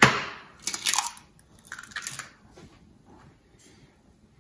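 An eggshell cracking, followed by soft wet squishes as the egg white slips through fingers into a stainless steel bowl while the yolk is held back. The sound starts sharply and falls off after about two seconds.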